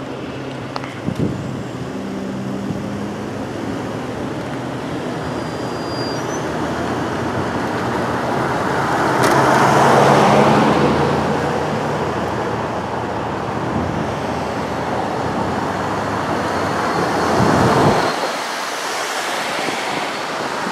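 Road traffic: cars driving over the railroad crossing one after another over a steady engine hum. The nearest car passes loudly about ten seconds in, and another near the end.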